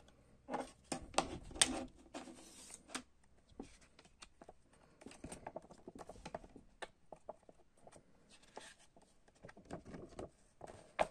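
Clear plastic CD jewel case clicking and creaking as the disc is pressed off its centre hub, followed by a folded paper poster rustling and crackling as it is handled and unfolded. There is a sharp click near the end.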